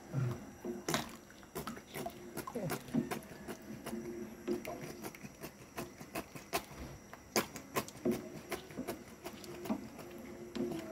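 Plastic spatula stirring a pot of boiling rice-flour porridge in an aluminium pot, with scattered small taps and clicks at an irregular pace.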